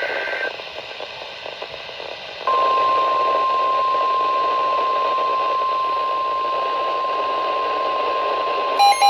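Weather radio broadcast: the tail of a SAME digital header data burst (a buzzy two-tone warble), then a couple of seconds of radio hiss. About two and a half seconds in, the NOAA Weather Radio warning alarm tone starts: one steady high tone that signals a warning-level alert is about to be read. Near the end, an electronic alarm starts beeping rapidly over the tone.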